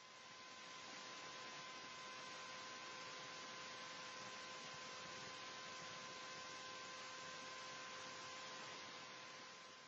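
Vacuum cleaner running, heard faintly as a steady hiss with a steady hum tone through it. It fades in at the start and fades out near the end.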